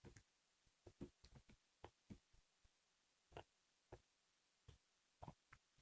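Near silence broken by faint, irregular clicks and taps from people eating, such as mouth sounds and utensils on dishes, about a dozen in all.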